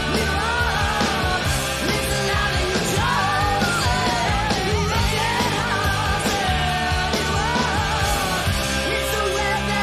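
Hard rock song: a singer's voice over a full rock band with drums, playing on without a break.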